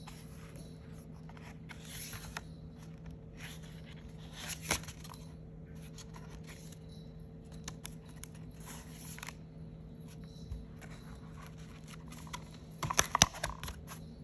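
Paper and cardboard journal pages being handled and turned: scattered rustles and light scrapes, with a louder flurry of crackling paper near the end as a page is flipped. A faint steady hum runs underneath.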